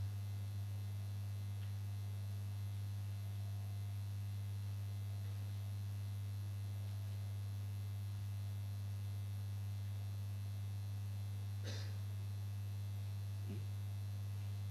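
Steady low electrical mains hum, one unchanging low tone with a fainter overtone above it, with a brief faint noise about twelve seconds in.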